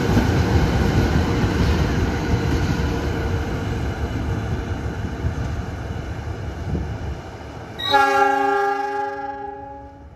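Two CC 206 diesel locomotives and their train running past, the rumble slowly fading as they draw away. Near the end a locomotive air horn sounds a chord for about two seconds.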